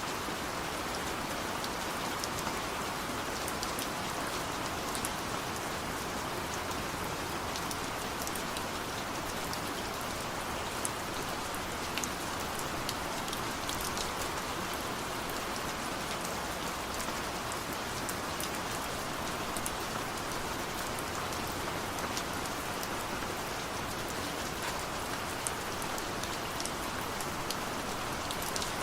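Heavy rain falling steadily, a dense even hiss of drops hitting a surface with many small drop ticks on top.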